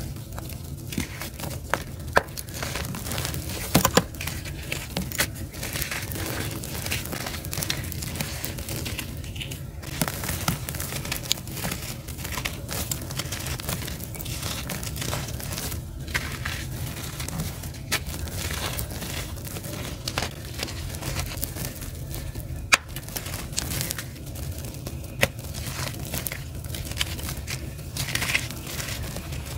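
Bare hands squeezing and crumbling gritty charcoal lumps, making a continuous crunching, rustling grind of grit with crumbs trickling through the fingers. Scattered sharp crackles come through as pieces snap.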